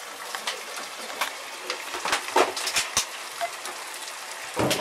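Chopped cabbage sizzling in hot oil in a frying pan as it is tipped in and stirred, with a wooden spatula clacking and scraping against the bowl and pan several times.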